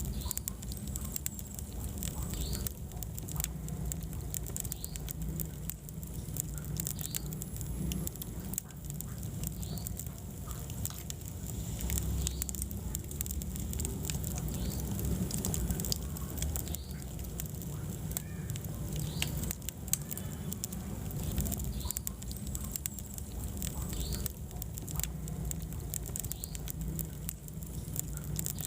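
Wood fire in a fireplace crackling, with frequent sharp pops and snaps over a low steady rumble.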